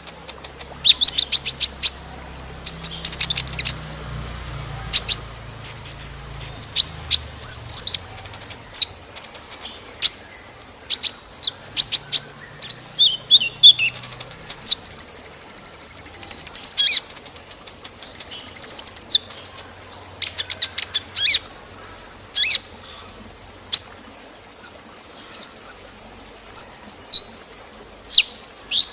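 Kolibri ninja (sunbird) singing: quick bursts of thin, high chirps and rapid trills, with one longer trill of about two seconds midway, over a faint steady rush of water.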